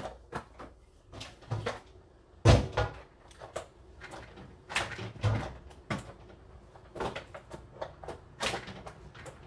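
Household clatter while tidying a kitchen: an irregular run of knocks and clicks from cupboard doors and things being handled, with one loud bang about two and a half seconds in.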